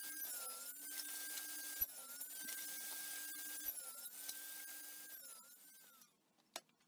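Table saw running as plywood pieces are crosscut on its sled, the motor's pitch dipping briefly a few times as the blade bites into the wood. The saw's sound dies away near the end.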